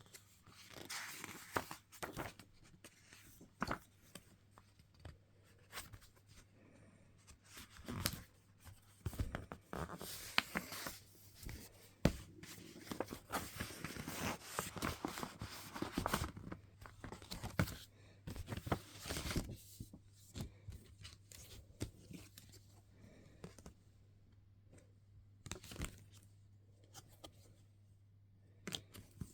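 Music album packaging being opened by hand: wrapping tearing, with paper and card handled in irregular bursts of rustling and clicks that thin out over the last several seconds. A faint steady low hum underneath.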